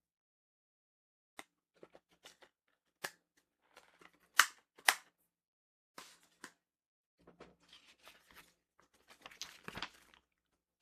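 A plastic Blu-ray case and its paper insert being handled: a series of sharp clicks and taps, then light rustling from about seven seconds in.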